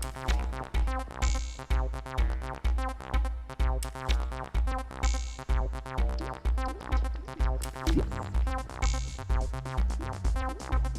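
Electronic dub music with a deep bass note pulsing about twice a second and a hissing swell every four seconds or so.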